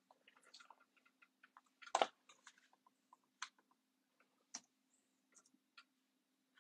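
Faint, scattered small clicks and scratchy noises close to the microphone, with one louder rustle about two seconds in, over a faint steady hum.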